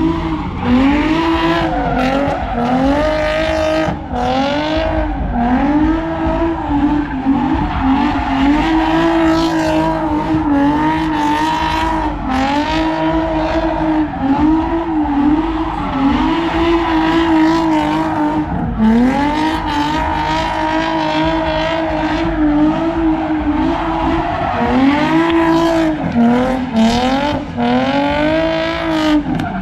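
Car engine revving hard and repeatedly, its pitch rising and falling over and over, with tyre squeal as the car does donuts.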